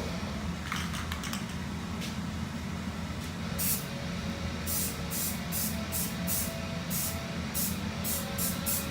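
Aerosol spray can hissing in short bursts, about ten quick sprays starting a few seconds in, over a steady low hum.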